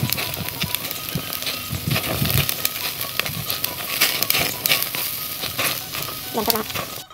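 Marinated pork intestines sizzling and crackling on a wire grill over a charcoal fire, with clicks and knocks of metal tongs turning them.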